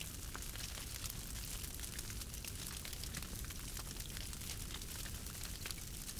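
Wood fire of charred logs over glowing embers, crackling with many small, irregular pops over a low steady rumble.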